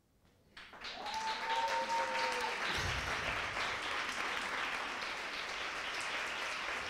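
An audience applauding steadily after a short hush; the clapping starts about half a second in.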